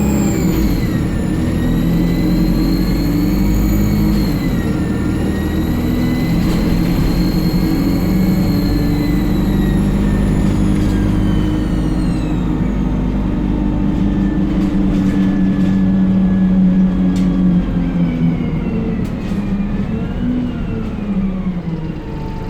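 ADL Enviro 200 bus engine running under way with a loud turbocharger whistle, a high whine that rises and falls with engine speed and fades out about halfway through. A lower whine dips near the end, and a few sharp clicks come in the second half.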